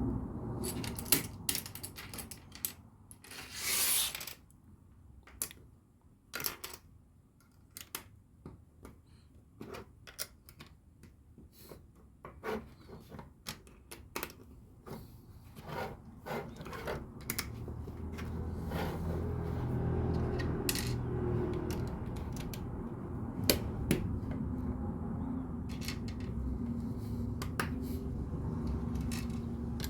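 Plastic LEGO pieces clicking and tapping as they are handled and pressed together, many small sharp clicks at irregular intervals, with a short rustle about four seconds in. From about halfway a low steady hum rises underneath.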